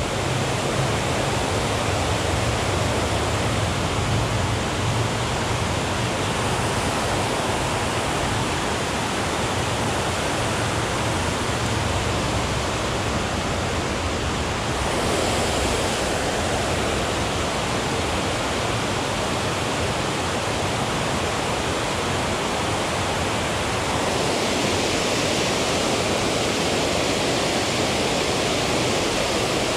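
Water pouring over a dam spillway: a steady, even rush with no breaks, turning a little brighter and hissier near the end.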